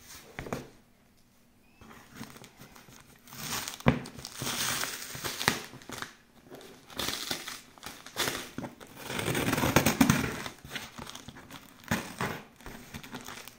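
Packing tape on a cardboard shipping box being slit with scissors and torn off: a run of crinkling, scraping tearing sounds with sharp clicks, starting about two seconds in, with the longest, loudest stretch near the tenth second.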